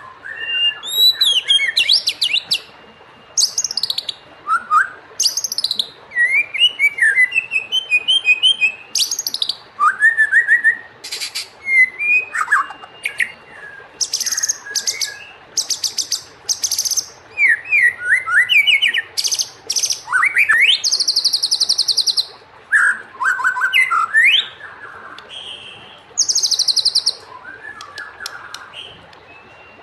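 White-rumped shama (murai batu) singing a long, varied song of rising whistles and fast, rattling trills, with short pauses between phrases.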